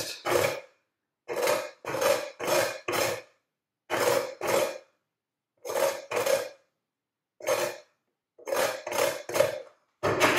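A lime being zested on a domed metal grater: short rasping strokes of the peel across the grating teeth, coming in runs of two to four with brief pauses between.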